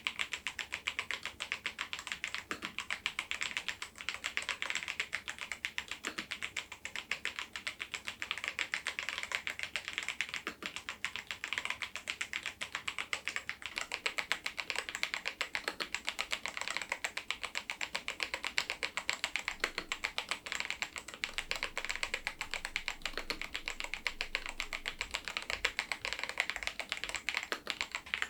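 Machenike K500 PRO mechanical keyboard with its stock switches and keycaps being typed on: a continuous, rapid run of key clacks at an even level.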